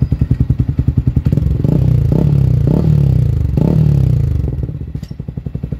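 Yamaha Sniper 155R's single-cylinder four-stroke engine breathing through an MVR1 aftermarket exhaust: idling with an even popping beat, then revved in about four quick throttle blips, each rising and falling, before dropping back to idle near the end.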